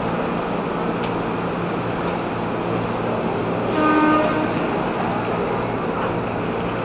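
KRL Commuter Line electric train at a station platform with a steady low hum, and one short horn toot about four seconds in.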